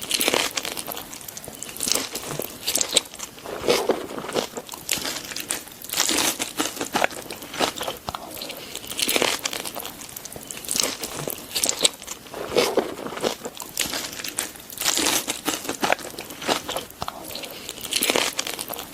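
A person eating close to the microphone: crisp crunching bites and chewing in irregular bursts, about one every second or so.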